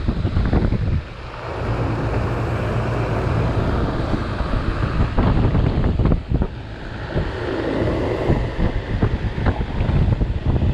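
2004 Tempstar 4-ton central air-conditioner condenser running: a steady compressor hum under the rush of the outdoor fan, with air buffeting the microphone.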